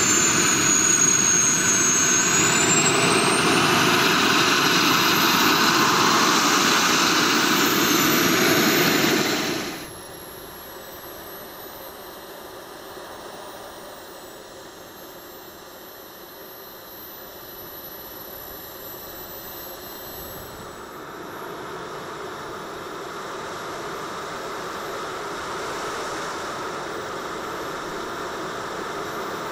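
Four Jetsmunt 160 model gas turbines of a giant RC Avro Vulcan running on the ground: a loud jet rush with a high turbine whine that dips and then rises in pitch in the first few seconds. About ten seconds in, the sound drops to a much quieter, muffled jet hum with a faint high whine, as heard from a camera mounted on the model, slowly growing louder toward the end.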